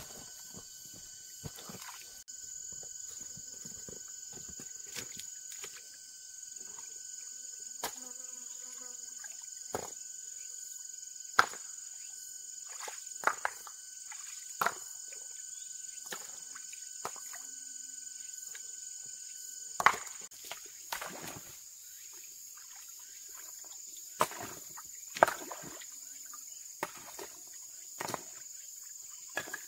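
Steady high-pitched drone of forest insects, with a second thin insect tone that stops about two-thirds of the way through. Scattered sharp knocks and taps come at irregular intervals, a few of them loud.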